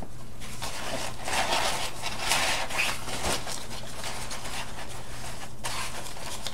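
Stiff rip-stop fabric rustling and scraping as hands work a padded divider into a shoe bag and press it onto Velcro strips. The handling comes in uneven bursts, busiest from about one to three seconds in.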